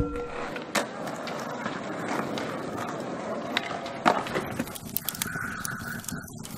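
A brass singing bowl's ringing dies away at the start, giving way to a steady rustling, scraping noise with scattered clicks and knocks. A short steady tone sounds about five seconds in.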